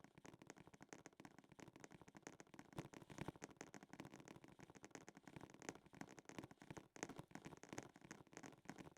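Near silence, with faint irregular crackles and rustles throughout.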